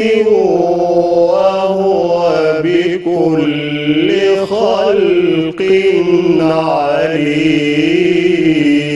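A man reciting the Quran in the melodic chanted style, holding long ornamented notes whose pitch winds up and down, with a couple of short breaks for breath.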